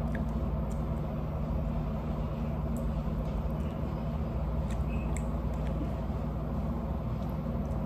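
Steady mechanical hum of a wall air-conditioning unit running, with a few faint clicks and smacks of chewing on chicken wings.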